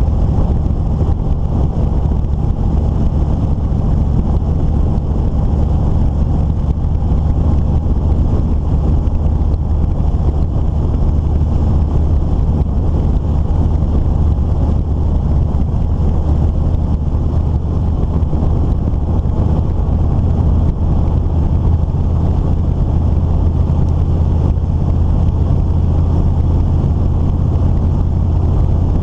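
A vehicle driving at a steady speed along a paved road: a constant low engine drone with wind rushing over the microphone.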